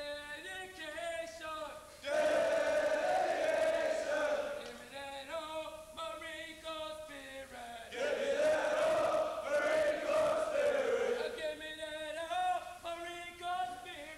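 Call-and-response chanting by Marine recruits: a lone male voice calls out a line three times, and each of the first two calls is answered by a platoon of men shouting back together, louder than the caller.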